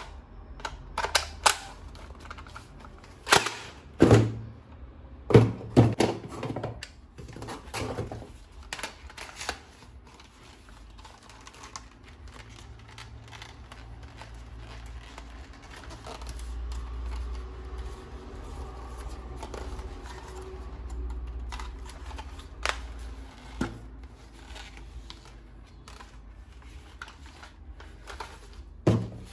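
Irregular clicks and knocks of hard plastic being handled, as from unpacking and fitting together the parts of a toy gun, with a low rumble in the middle stretch.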